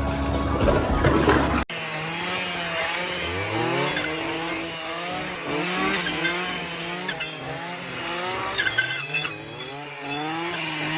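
A low steady machine rumble, then after a sudden cut about two seconds in, an engine revving up and down over and over.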